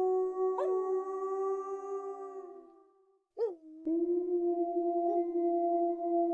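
Wolves howling: a long held howl slowly sinks in pitch and fades out about three seconds in, then after a short gap a new howl rises in and holds steady.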